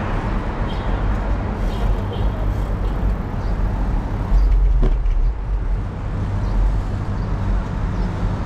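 Wind rumble and tyre noise on a bike-mounted action camera riding along a city street, with car traffic in the mix. It gets louder a little after halfway, with one short knock.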